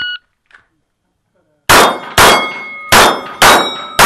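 A shot timer beeps once to start the string. About a second and a half later a 9mm Canik TP9SFX pistol fires five quick shots at steel plates, and each hit leaves the plate ringing.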